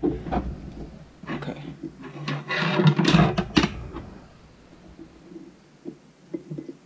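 Plastic screw lid being twisted on a glass jar: a rough grinding scrape loudest about two to three and a half seconds in, ending in a few sharp clicks, then light scattered ticks from fingers on the lid.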